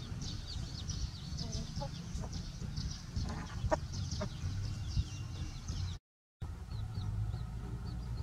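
Chicks peeping rapidly and continuously in high chirps, with a few short, lower clucks from an adult chicken around the middle, over a steady low rumble. The sound cuts out completely for a moment about six seconds in, then the peeping resumes.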